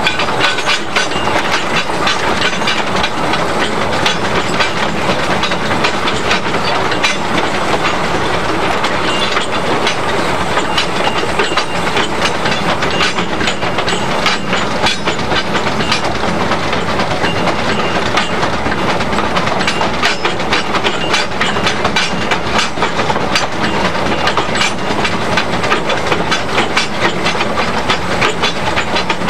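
Small two-foot-gauge Fowler tank steam locomotive running under load on the climb, heard from its cab: a steady, loud clatter and rattle of wheels on the narrow-gauge track, full of quick sharp clicks.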